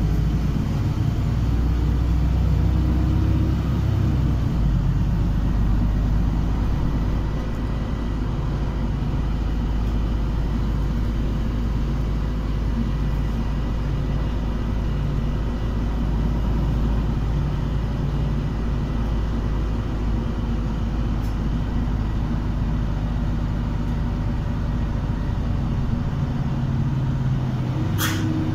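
City bus driving, heard from inside the passenger cabin: a steady rumble of engine and road noise. A single sharp click sounds shortly before the end.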